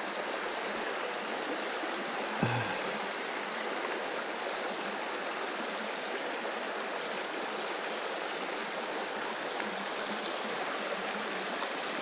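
Creek water rushing steadily over rocky riffles, with a short low knock about two and a half seconds in.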